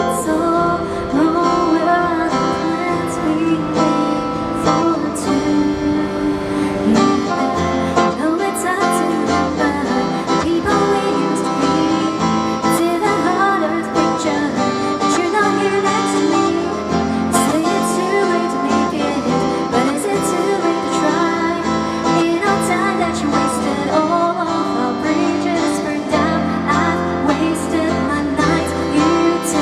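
Live pop song performance: a singing voice over guitar accompaniment.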